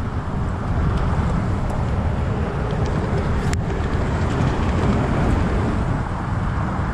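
Steady, gusting rumble of wind buffeting the camera microphone, with one sharp click about halfway through.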